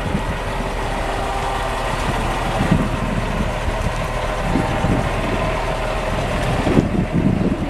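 Diesel engine of a Volvo B58 bus running steadily.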